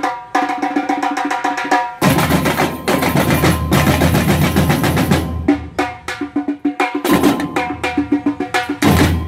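Samba batucada percussion ensemble playing a fast rhythm: tamborims struck with sticks in quick high strokes. The full band's deep bass drums join about two seconds in, drop out briefly around five and a half seconds, and come back in near seven seconds.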